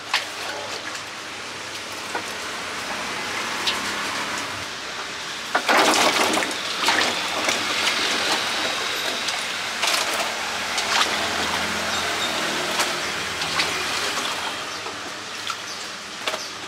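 Water splashing and sloshing in a steel basin as small green fruits are tipped in from a plastic basket and swished around to wash them, with light knocks of fruit and basket. The splashing picks up about a third of the way in and eases off toward the end.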